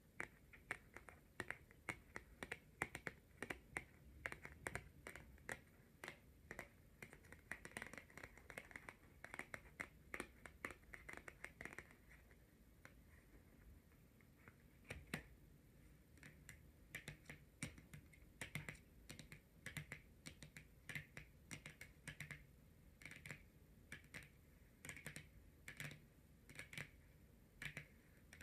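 Long natural fingernails tapping and clicking on tarot cards in quick, irregular runs of taps. The tapping thins out about twelve seconds in and picks up again a few seconds later.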